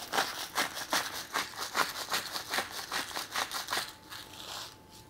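Hand-held salt grinder being twisted over the bones, its burrs crunching salt crystals in a rapid rasping rhythm of several strokes a second, stopping about four seconds in.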